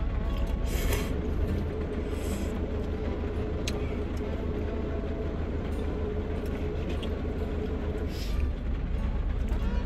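Steady low rumble of a parked vehicle's engine idling, heard from inside the cab, with a short noodle slurp about a second in and another near the end.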